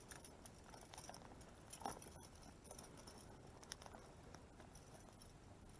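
Near silence, with faint light patter of water around a wading angler and a few soft ticks.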